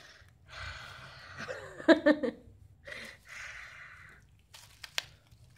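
Bubble wrap crinkling and rustling in two spells as a ferret wriggles and rolls on it, with a short stuttering vocal sound about two seconds in and a single sharp click near the end.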